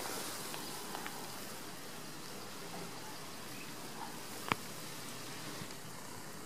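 Steady outdoor background hiss with a few faint ticks, and one sharp click about four and a half seconds in.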